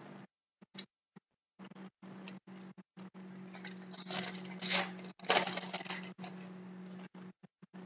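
A foil-wrapped Upper Deck hockey card pack being torn open and crinkled by hand, with rustling tears loudest about four and five seconds in, over a low steady hum.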